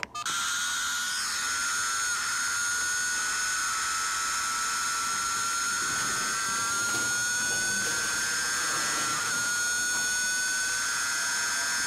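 Suzuki GSX-R600 inline-four engine running at high revs on the road, heard through a cheap action camera's recording: a high, drill-like whine that climbs slowly as the bike pulls. It is a really loud bike with a loud exhaust.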